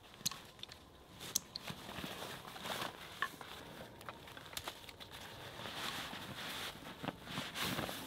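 Scattered rustles and soft crackles of dry leaf litter shifting under boots as gear is handled at a backpack, with a louder flurry of rustling near the end.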